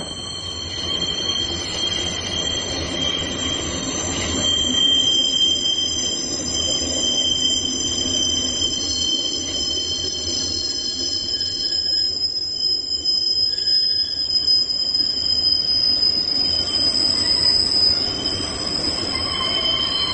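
Train wheels squealing as the train runs round a tight curve on the viaduct: several steady high-pitched tones held over the rumble of the wheels on the rails, the squeal of wheel flanges grinding against the rail on the bend.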